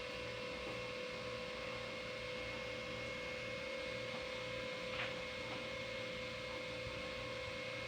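Steady electrical hum with a single constant tone, and a faint click about five seconds in.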